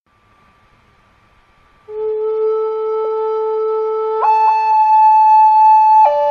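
Slow background music of long held woodwind notes, entering loudly about two seconds in after a faint held tone, the melody stepping to a new note twice.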